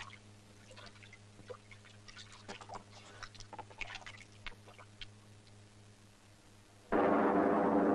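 Faint steady low hum with scattered soft crackles. Near the end, loud sustained music cuts in suddenly with a full, deep chord.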